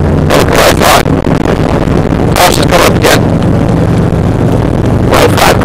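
Rally-prepared 1997 Subaru Impreza with a WRX engine swap running hard on a rough gravel stage, heard from inside the cabin: a steady engine drone with three loud bursts of noise.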